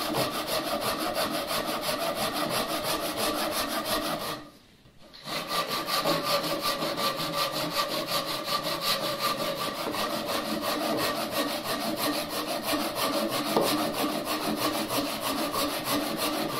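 Ryoba Japanese pull saw cross-cutting a pine bench leg with rapid, even strokes. The sawing stops for about a second roughly four seconds in, then carries on.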